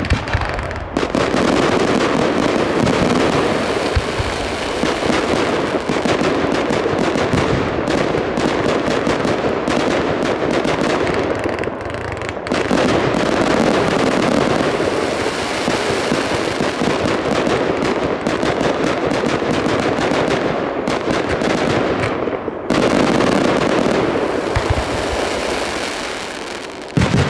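Fireworks display: a dense, continuous barrage of aerial shells bursting, with many rapid pops and bangs overlapping, easing briefly about twelve seconds in and again about twenty-two seconds in before picking up again.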